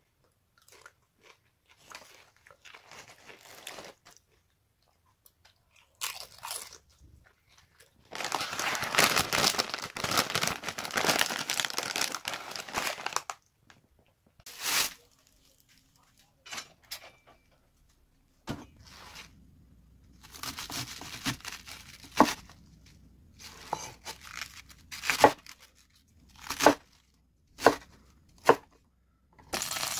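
A foil-lined potato chip bag crinkling for several seconds as it is handled and folded shut. Later a kitchen knife chops cabbage on a wooden cutting board, with several sharp knocks of the blade on the board over a low steady hum.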